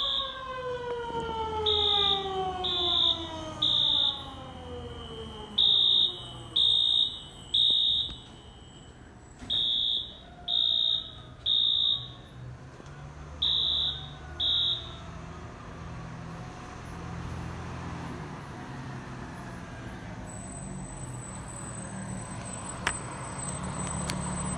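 Building fire alarm beeping in the temporal-three evacuation pattern: groups of three high beeps with a pause between groups, stopping about fifteen seconds in. Over the first several seconds a siren winds down in a slow falling pitch, with a steady low rumble underneath.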